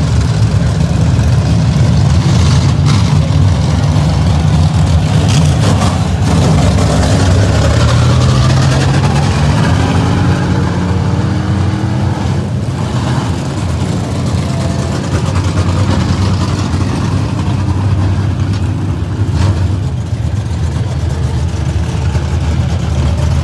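Several dirt-track modified race cars running on a dirt oval: loud, steady engine noise from the pack, with one engine's pitch rising as it accelerates around the middle.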